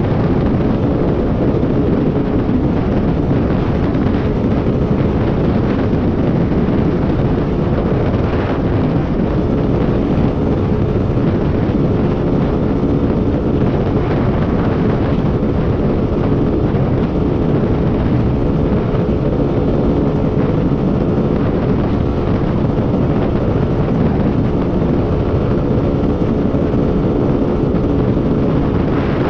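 Honda XR250 Tornado's single-cylinder four-stroke engine running steadily near top speed, about 145 km/h, through an aftermarket Protork 2 exhaust, with heavy wind rush on the microphone.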